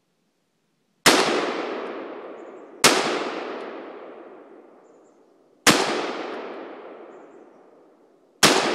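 AR-15 rifle firing four single shots a few seconds apart, the last near the end. Each shot is followed by a long echo that dies away over two to three seconds among the trees.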